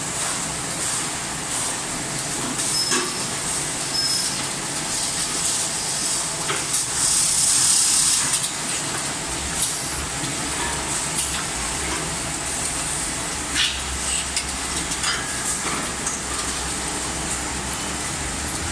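Automatic paper-bag milk powder packing machine running: steady machine noise with sharp clacks from its pneumatic grippers and clamps and hisses of compressed air, the loudest hiss about seven to eight seconds in. A low hum joins about halfway through.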